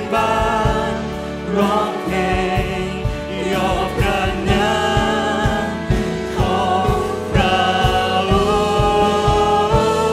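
Live church worship music: a man leads a worship song sung in Thai, with other voices singing along, over a band with a steady drum beat.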